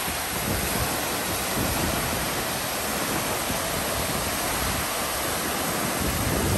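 Wind buffeting the microphone, an uneven low rumble over a steady rushing noise.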